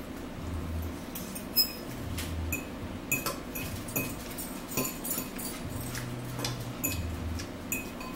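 Eating sounds at a table: forks clicking and scraping against plates and a salad bowl, with chewing. A scatter of short sharp clicks, the loudest about one and a half seconds in.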